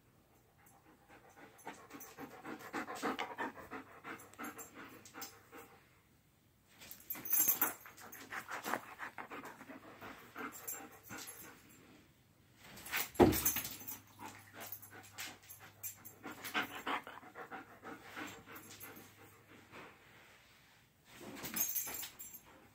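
A dog panting in quick, rapid breaths, in spells of a few seconds with short pauses between them. One short, sharp, loud sound about thirteen seconds in.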